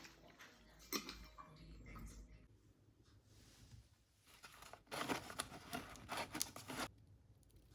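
Quiet small handling noises: scattered light clicks and scrapes, with a busier run of them about five to seven seconds in.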